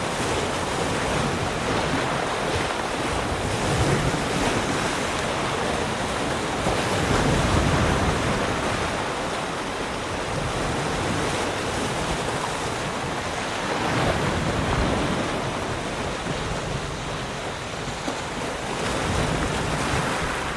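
Sea waves lapping and washing against rocks, a continuous splashing wash that swells louder every few seconds. Wind buffets the microphone underneath.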